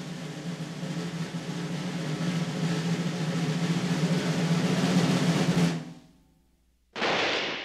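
Snare drum roll swelling louder for about six seconds and stopping abruptly. After about a second of silence, a single sharp firing-squad gunshot rings out and fades.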